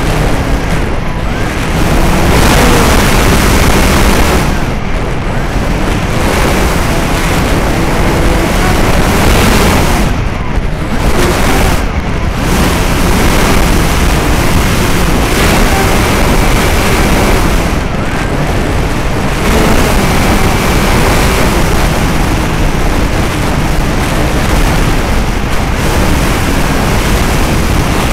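Strong wind buffeting the microphone: a loud, continuous rumbling rush that swells and eases with the gusts.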